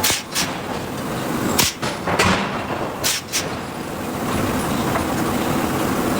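Hydraulic forging hammer striking hot steel: about six heavy blows in the first three and a half seconds, irregularly spaced, over a steady machinery noise that continues after the blows stop.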